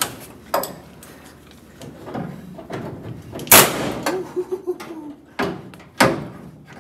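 Pneumatic air gun with a screwdriver attachment hammering at rusted door hinge screws, in separate sharp bangs with smaller clicks between. The loudest bang comes about three and a half seconds in, and two more come close together near the end. It sounds kind of scary.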